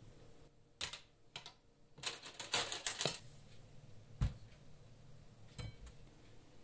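Metal kebab skewers clicking and clattering as they are handled and laid on a tray while lamb chunks are threaded onto them: a few sharp clicks, a dense run of clatter about two to three seconds in, then two duller knocks, the last with a faint ring.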